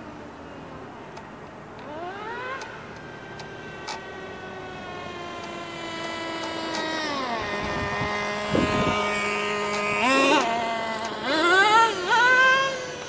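Traxxas T-Maxx 2.5 nitro RC truck engine running with a high-pitched whine. It revs up about two seconds in and drops in pitch around seven seconds as it eases off. It then revs hard twice near the end, loudest there.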